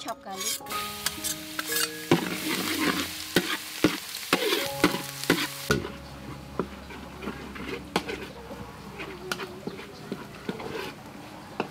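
Minced garlic sizzling in hot oil in a steel wok, stirred with a metal spatula that clicks and scrapes against the pan. The sizzle is loudest in the first half, then dies down to a softer fry with occasional spatula taps.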